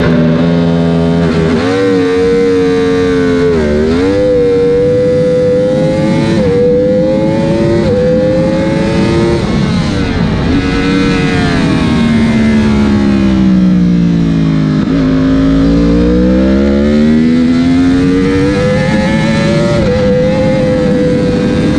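Yamaha YZF-R1 superbike's inline-four engine heard from onboard. It pulls away from a standstill in first gear, with the revs climbing and dropping sharply at each quick upshift. Around the middle the pitch falls steadily as the throttle eases, then climbs again, with a shift near the end, over constant wind rush.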